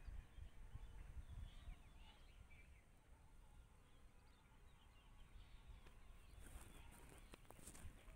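Faint birds chirping over a low rumble, with a few clicks near the end.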